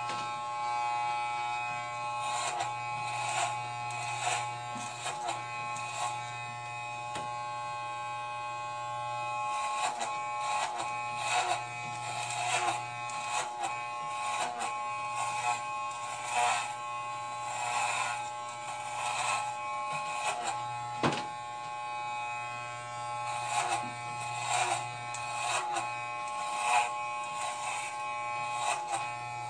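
Corded electric hair clippers buzzing steadily while shaving long hair, with frequent short crunching noises at irregular intervals as the blades cut through the hair.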